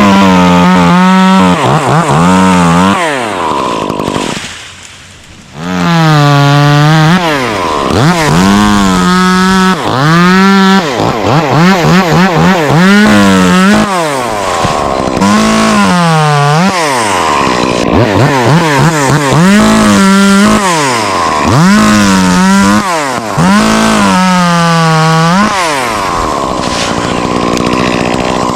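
Two-stroke chainsaw revved hard over and over, its pitch climbing to full throttle, holding briefly, then falling back, as it cuts the oak; it drops to a low idle for a moment about four seconds in before revving again.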